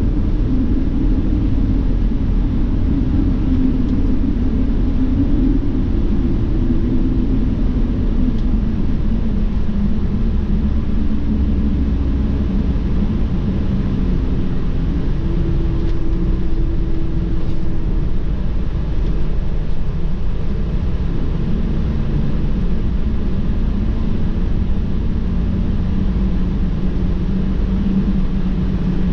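Inside a diesel coach bus cruising on the highway: a steady low drone of engine and tyre noise, with the engine's hum stepping up and down in pitch now and then.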